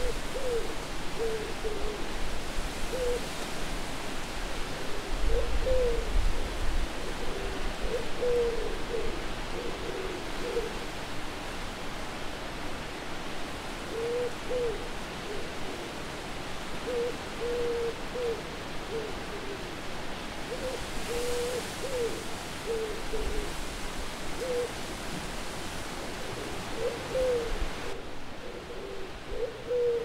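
Owl hooting in short calls repeated every second or two, over a steady hiss of wind with a few low gusts.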